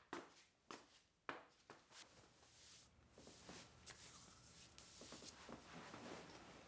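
Quiet room: a few soft footsteps on a wooden floor in the first two seconds, then faint room tone.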